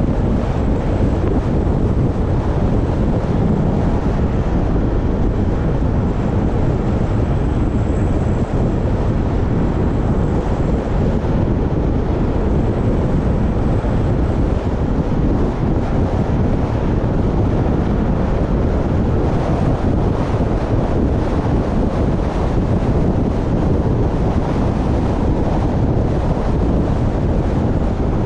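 Steady, deep wind rumble buffeting the microphone of a camera travelling along a road at speed.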